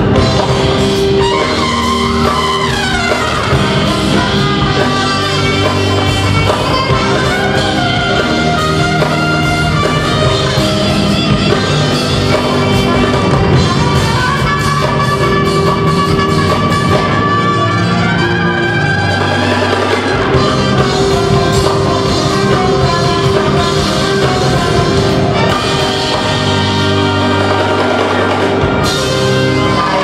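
Live jazz fusion band playing: saxophone and trumpet over a Korg Triton keyboard and a drum kit.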